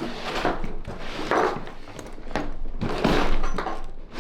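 Tools being handled and pulled out of a tool bag: a run of rustling, scraping rushes with small knocks.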